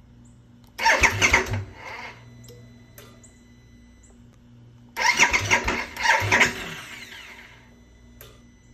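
2022 Harley-Davidson Nightster's Revolution Max 975T V-twin being cranked twice, about a second in and again about five seconds in. Each attempt lasts one to two seconds and dies away without the engine settling into running: the bike's no-start fault.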